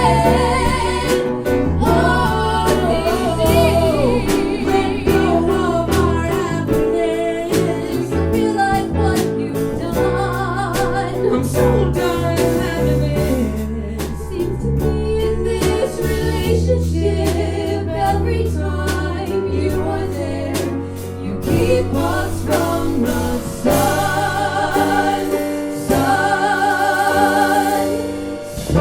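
Live band music: piano, bass and drums under a singer. The singer holds long notes with vibrato near the end.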